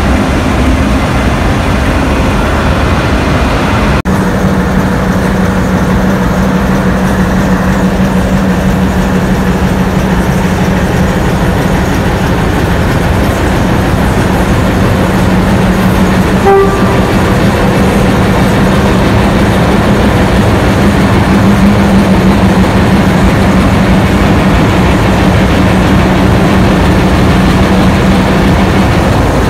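Diesel engines of two ALCO-powered locomotives, a 44 class and a 442 class, running close by with a steady low hum. There is one very short high note about halfway through.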